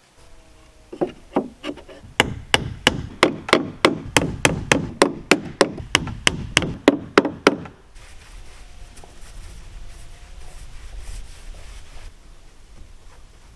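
Hammer driving nails into a wooden trim board: a quick run of sharp blows on wood, about three a second. The blows stop about eight seconds in.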